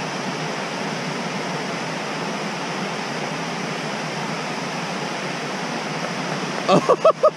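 Steady, even rush of water pouring over a low dam spillway. A voice cuts in briefly near the end.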